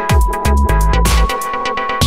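Electronic dance music with a loud, deep bass line in pulsing blocks, fast hi-hat-like strikes and a held synth tone.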